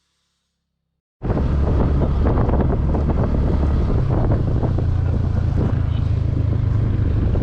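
Silence, then about a second in a sudden start of a vehicle running: a steady low engine drone with wind buffeting the microphone.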